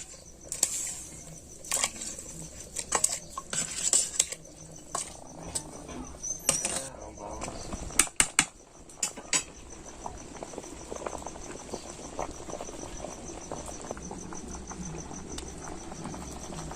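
A metal spoon clanking and scraping against a cooking pot as sautéed vegetables are tipped into the rice and dal and stirred. The clatter is busiest in the first ten seconds, then thins to occasional light taps.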